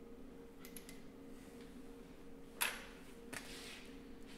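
A few light clicks and taps from hands handling an electric motor's coolant hoses and metal casing, the sharpest about two and a half seconds in, over a faint steady hum.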